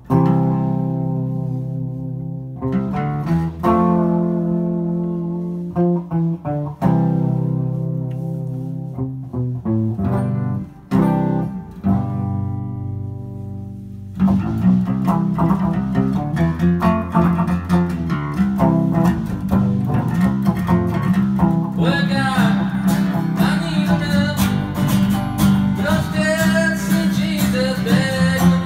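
Live band of acoustic guitar, green hollow-body electric guitar and acoustic bass guitar playing. Slow chords ring out and decay at first, then the band settles into a steady strummed rhythm about halfway through. A man's singing comes in near the end.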